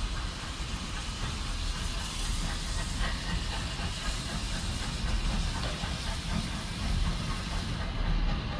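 Steam locomotive hissing steam as it comes out of a tunnel and approaches, over a low rumble. The high hiss drops away near the end.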